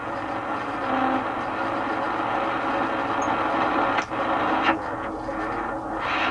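Radio Shack DX-302 shortwave receiver's speaker giving a steady hiss and static while tuned near 11 MHz, with two sharp clicks about two-thirds of the way through.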